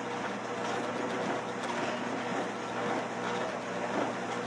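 Treadmill's electric motor and belt running steadily under a person walking, a continuous hum.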